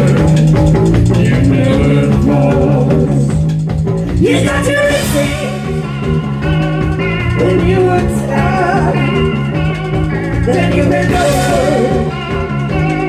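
A live rock band playing with electric guitars, bass and a drum kit, with sung vocals that come to the fore about four seconds in.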